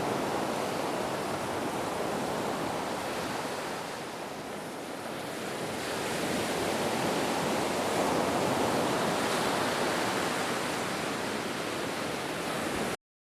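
Ocean waves washing in a steady rush of surf that eases about four seconds in and swells again, then cuts off suddenly near the end.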